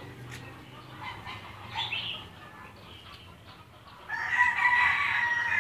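A drawn-out animal call with a steady pitch, starting about four seconds in and lasting about a second and a half, the loudest sound here; a shorter call comes near two seconds in.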